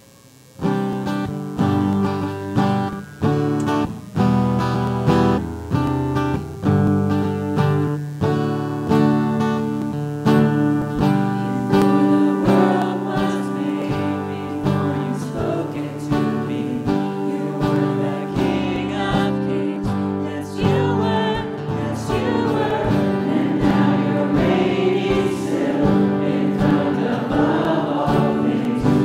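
Live church worship band starts playing about half a second in, with struck chords at a steady pulse for an introduction. Voices come in singing the worship song about halfway through.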